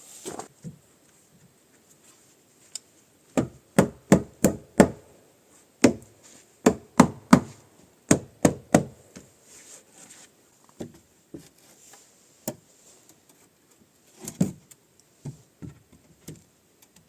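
A hand tool striking wood: sharp blows in quick runs of several strikes, about three a second, with pauses between runs, then lighter, scattered knocks near the end.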